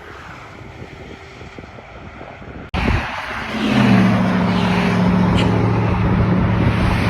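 Car running on the road: steady engine drone and road noise. It jumps abruptly louder about three seconds in, and the low engine tone then holds steady.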